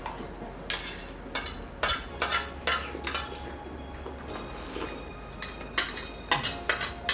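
Steel spoons clinking and scraping against steel plates as two people eat fast, about ten sharp irregular clinks, mostly in the first three seconds and again near the end.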